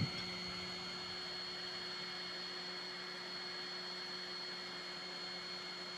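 Steady hum and hiss, with a few steady tones, from a Monoprice 3D printer's cooling fans running while the print has stopped partway.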